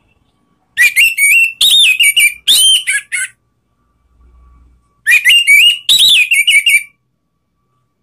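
Orange-headed thrush (anis merah) singing loudly in two phrases of rapid whistled and warbled notes, the first about a second in and the second about five seconds in, with a short pause between.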